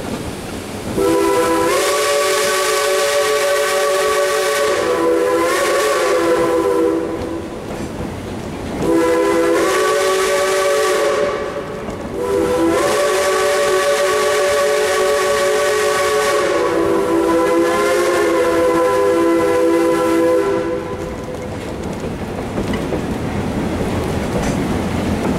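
Steam whistle of Cass Shay locomotive #11 blowing three blasts: a long one about a second in, a short one, then the longest. The blasts sound over the running noise of the moving train, as a warning for a road grade crossing.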